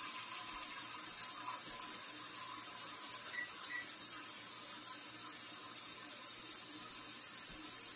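Kitchen faucet running a steady stream of hot water into a Dutch oven in a sink, filling it.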